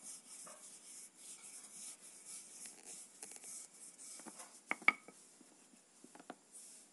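Rolling pin working a stuffed puran poli dough over a floured steel plate: soft, repeated rubbing strokes back and forth. A couple of sharp clicks stand out a little under five seconds in.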